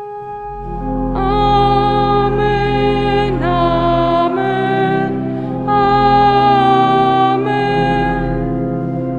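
Church organ holding sustained chords over a low bass while voices sing along, the chord changing a few times. The sound swells in over the first second.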